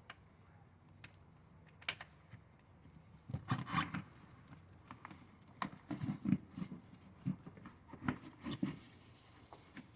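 Hands unclipping the plastic latches of a Toyota Hilux air filter box and handling the housing: scattered irregular clicks and rubbing, more frequent from about three and a half seconds in.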